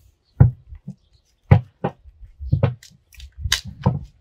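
Long wooden paddle stirring a big pot of boiling glutinous rice, knocking against the pot in a series of irregular thuds, about two a second.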